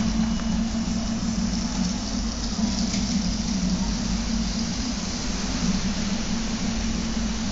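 RepRap Prusa Mendel 3D printer running, its stepper motors giving a steady hum with a noisy whir over it.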